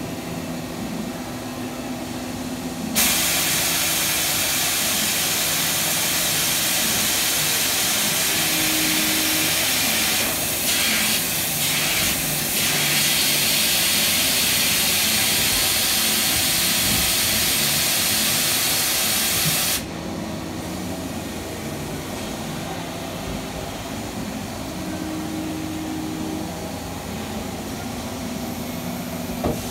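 You-Ji YV-1200 vertical turning/milling center running an automatic tool change, its machine hum steady throughout. A loud hiss of blowing air starts suddenly about three seconds in, dips briefly a few times midway, and cuts off sharply about seventeen seconds later.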